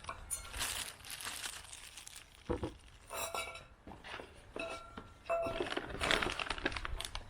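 Intake kit parts handled while being unpacked: plastic packaging crinkling and rustling, with several light clinks and knocks of parts touching, a few of them ringing briefly.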